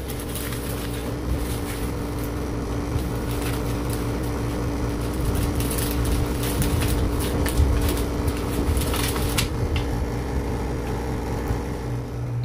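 A steady machine hum carrying two steady tones over a low rumble, with scattered light clicks and knocks.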